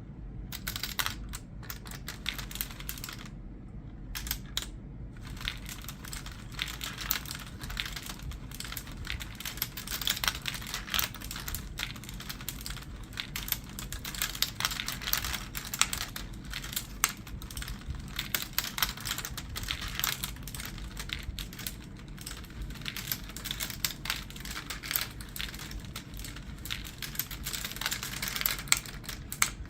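Glass marbles rattling through a wooden UGears chain hoist marble run: a continuous stream of rapid, irregular clicks and clatters as the marbles roll and drop along the wooden tracks and lift mechanism.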